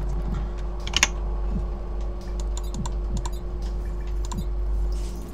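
Keyboard and mouse clicking at a computer, with a sharper burst of clicks about a second in, over a steady low electrical hum.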